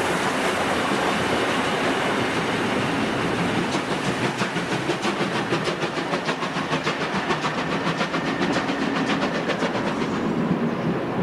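Steam locomotive moving off across the yard over a steady hiss. From about four seconds in there is a quick regular beat, about four a second, which fades near the end.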